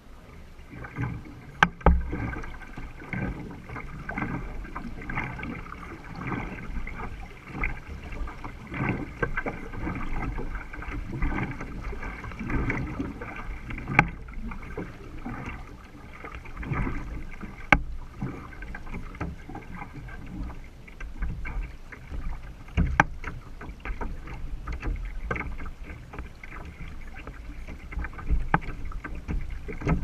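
Water sloshing and splashing along the hull and outrigger float of a two-person outrigger canoe under paddle, with a low rumble and a few sharp knocks.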